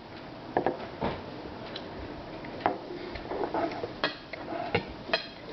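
Scattered light knocks and clicks of tableware being handled during a meal, about half a dozen separate taps.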